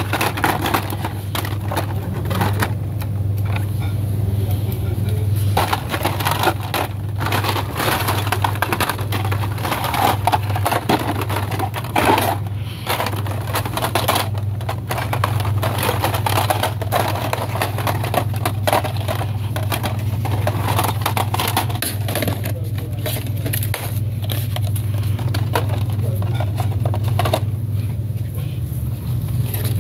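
Blister-packed die-cast toy cars being flipped through on store display pegs: their plastic bubbles and card backs clack and crinkle in quick irregular clicks. A steady low hum runs underneath.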